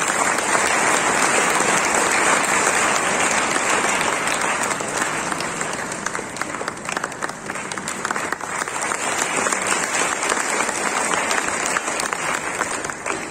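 Audience applauding, many hands clapping at once. It starts suddenly, eases a little midway and then picks up again.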